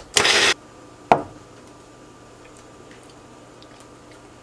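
Small bullet-style personal blender pulsed once for about half a second, blending garlic confit and caramelized onions. A sharp knock follows about a second in, then only faint room tone.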